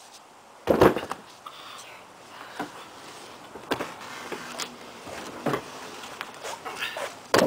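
Scuffs and knocks of bodies, knees and hands moving on foam floor mats, with one louder knock about a second in and smaller ones scattered after it.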